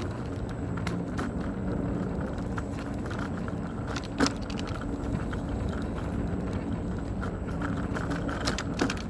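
Wheels rolling over rough, broken concrete: a steady rumble with light rattling, and a sharp knock about four seconds in.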